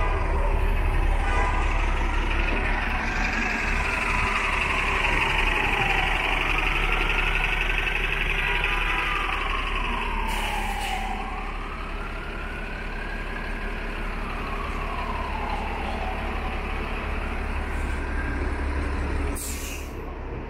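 An emergency vehicle's siren wailing, its pitch slowly rising and falling about every five seconds, over the low rumble of city traffic. Two short hisses cut in, about halfway through and near the end.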